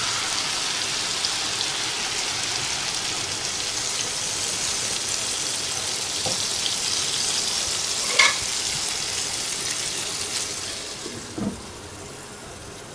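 Potato and aubergine pieces sizzling in hot oil and masala in a non-stick saucepan, a steady hiss. There is a short knock about eight seconds in, and near the end a glass lid goes on with a clink and the sizzle quietens.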